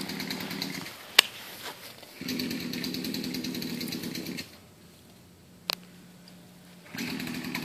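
Chainsaw engine revving in stretches of about two seconds, with a quiet gap in the middle where it drops to a low idle before revving again near the end. A sharp click a second in is the loudest sound, and a second, fainter click comes later.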